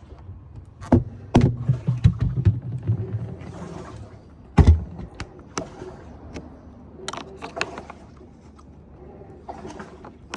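Irregular clunks and knocks of a small refrigerator's door and hinge parts being handled while the door is swapped to open from the other side, the heaviest thump about four and a half seconds in.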